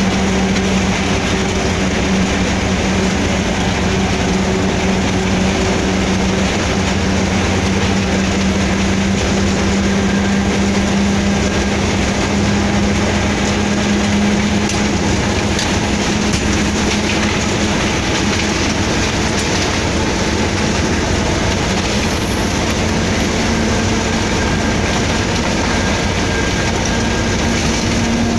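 Pakistan Railways PHA-20 diesel locomotive running along the line, heard from inside its cab: a steady engine drone over the rumble of wheels on track. The engine note rises a little over the last several seconds.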